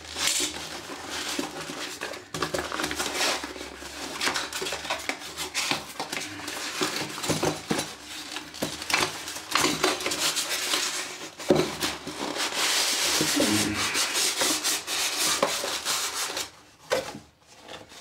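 Cardboard box and packing tape being handled and pulled open by hand: rustling, scraping and tearing with scattered knocks, including a longer scraping stretch past the middle.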